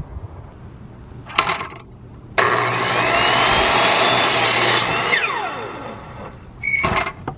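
Delta miter saw starting suddenly and cutting through a piece of framing lumber for about two seconds, then its motor whine falling steadily as the blade spins down. A brief knock comes before the cut and another short clatter near the end.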